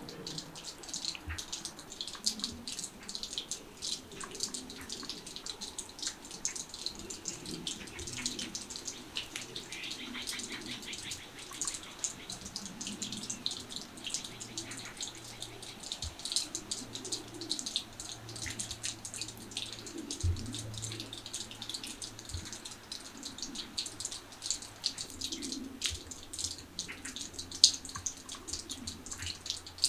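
A steady, dense patter of many small ticks and drips, with a faint low hum coming in about eight seconds in.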